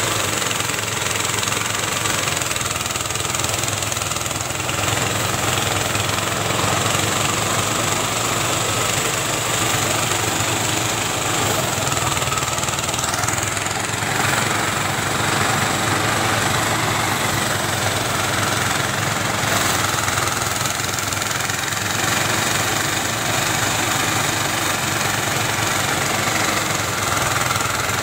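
Engine-driven rice thresher (bolhot) running steadily as bundles of harvested rice stalks are fed into it.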